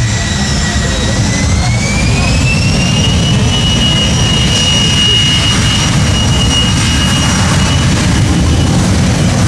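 Boeing 737 Classic airliner's CFM56 turbofan engines spooling up: a whine that rises in pitch about one to three seconds in and then holds steady, over a constant low rumble.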